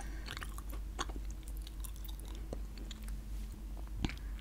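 Chewing gum close to the microphone: soft, irregular wet clicks and smacks of the mouth.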